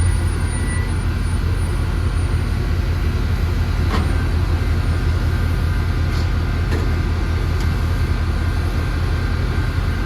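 Diesel locomotive engine running steadily, with a low rumble and a cluster of steady tones above it.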